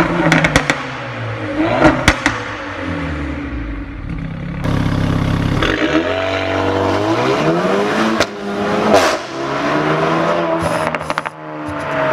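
Renault Mégane 4 RS turbocharged 1.8-litre four-cylinder running through a straight-through custom stainless exhaust with no middle silencer. It is revved with sharp crackles and pops in the first couple of seconds, then pulls away accelerating, its pitch rising with a sudden drop at a gear change. It crackles again on lifting off near the end before rising once more.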